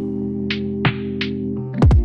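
Electronic background music: a steady beat of deep kick drums and short hi-hat ticks over held synthesizer chords, with the chord changing near the end.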